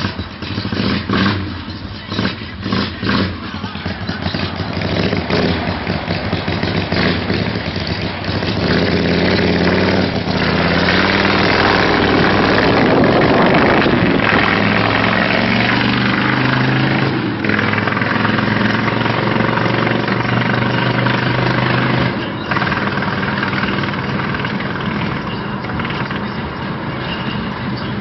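Freshly rebuilt engine starting up: several uneven pulses at first, then it catches and runs, revving up and holding high for a while before dropping back to a lower, steadier running speed a few seconds before the end.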